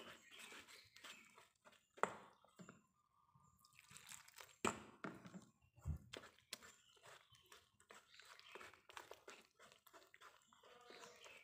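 Wire whisk stirring flour and water into a batter in a stainless steel bowl: faint, irregular wet scraping and ticking, with sharper clicks about two seconds in and again near five seconds.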